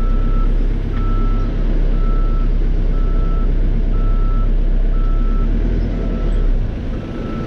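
Caterpillar 430E backhoe loader backing up: its reverse alarm beeps steadily about once a second over the steady rumble of the diesel engine.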